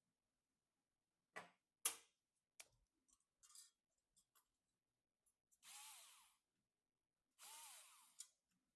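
Hand-assembly handling sounds: a few sharp clicks in the first half, the loudest about two seconds in, then two short rasping slides of about half a second to a second each.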